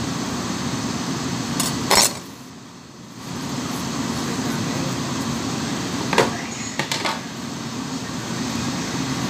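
A few sharp knocks on a plastic cutting board during knife work on salmon, the loudest about two seconds in and two more around six and seven seconds in, over a steady hum of kitchen ventilation.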